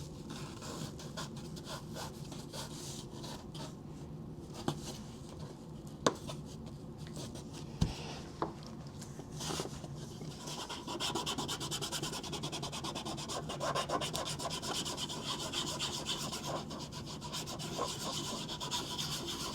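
Fingers rubbing and pressing a glued patch down onto the fabric of a Klymit Static V air mattress, a dry rubbing sound with a few light taps in the first half, and louder rubbing from about halfway through.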